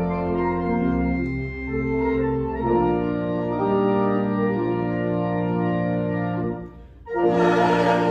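Organ playing slow, sustained chords that change every second or so. The organ fades out briefly about seven seconds in, and fuller music with a choir comes in just before the end.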